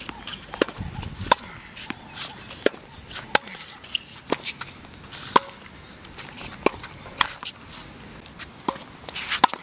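Tennis ball struck back and forth in a rally at the net: sharp pops of the ball off racket strings, very roughly one every second.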